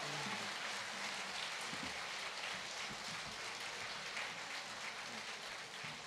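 Audience applauding, a dense steady patter of many hands, slowly dying down.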